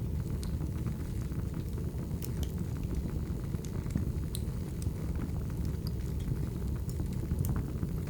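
Firewood burning: a steady low rumble with scattered sharp crackles and pops.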